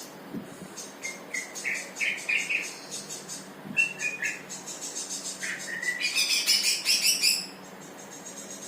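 A bird chirping in several short phrases, the longest and loudest near the end, over a faint high pulsing buzz.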